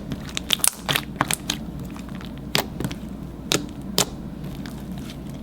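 Thick slime being handled and squeezed, giving irregular sharp clicks and little pops: a quick cluster in the first second and a half, then single clicks a second or so apart.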